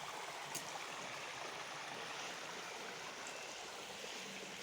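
Steady rush of running water, with a faint click about half a second in.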